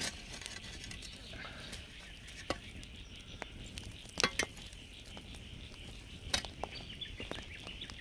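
Log campfire burning, a faint steady crackle and hiss broken by a few sharp pops, the loudest a double crack about four seconds in and another about six seconds in.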